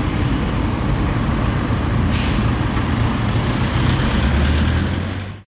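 Vehicle engines running with a steady low rumble, with a short hiss of air about two seconds in. A van passes close near the end, deepening the rumble. The sound cuts off abruptly at the end.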